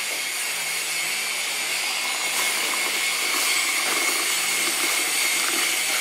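White electric hot-water pot dispensing a stream of hot water into a mug of instant coffee: a steady motor-like whir with a thin high whine, along with the pour.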